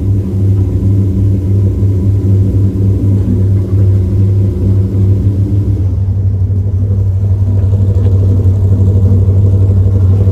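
A vehicle engine running steadily with a deep, even rumble.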